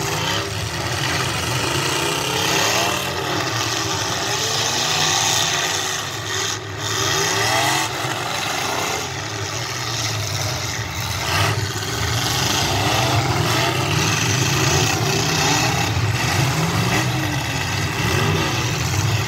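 Several demolition derby cars' engines revving and running at once, rising and falling in pitch over and over, with a dense wash of background noise underneath.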